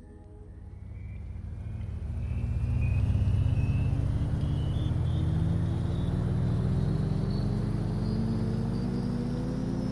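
A vehicle accelerating: a low rumble that swells over the first few seconds, with a motor whine rising steadily in pitch.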